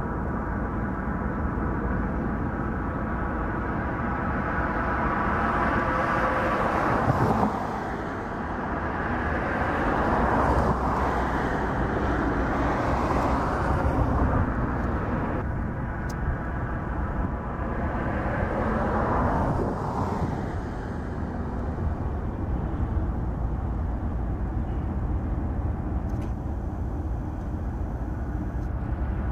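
Union Pacific diesel locomotives running as they lead a double-stack container train past. The steady engine and train noise swells and eases several times.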